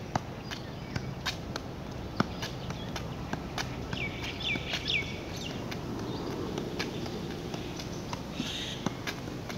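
A football being juggled, the ball tapping off the foot again and again in an uneven rhythm, roughly two to three touches a second.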